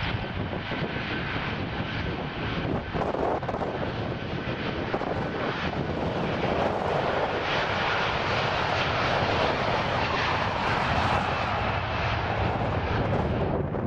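Airbus A330 jet engines rumbling and building steadily louder as the airliner passes, mixed with heavy wind buffeting on the microphone.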